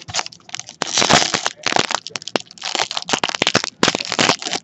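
Trading-card pack wrapper being torn open and crinkled by hand: a rapid, irregular run of crackles and rips.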